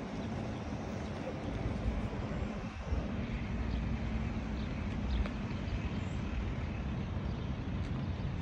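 Steady low drone of a distant seaplane's propeller engine running.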